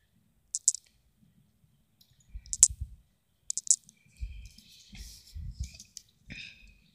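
A few short, sharp clicks, some in quick pairs, with low rumbling handling noise from about two seconds in as the phone is moved.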